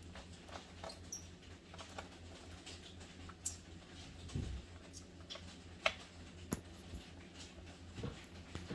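Small irregular clicks and ticks of a screwdriver backing out screws and screws being handled against a laptop's plastic case, over a faint steady hum.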